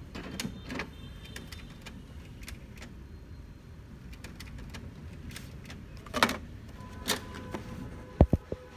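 HP DeskJet 2330 inkjet printer running its printhead cleaning cycle: a low steady motor hum with scattered clicks and short whirs from the carriage and service mechanism. Near the end there are two sharp knocks as a cardboard cartridge box is handled.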